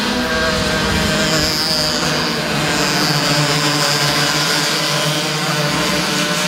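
A pack of 60cc two-stroke racing karts running at speed. Several high-pitched engine notes overlap and shift in pitch.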